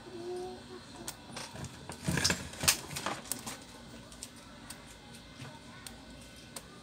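Hands working a laptop's LCD panel in its plastic display lid: scattered small plastic clicks, with a short stretch of rustling and scraping a couple of seconds in and the sharpest click near its end.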